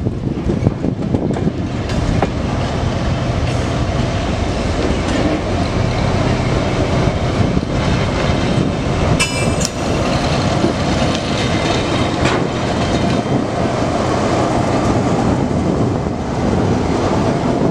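TGM6D diesel-hydraulic shunting locomotive with flat wagons rolling slowly past close by: the diesel engine drones steadily under the rumble and clatter of wheels on the rails, with a few sharp knocks at rail joints and a brief high wheel squeal about nine seconds in.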